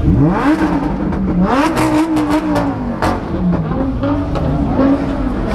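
Mercedes G-Wagon's V8 engine revved repeatedly, the pitch climbing sharply and falling back several times. Sharp crackles come from the exhaust about two seconds in.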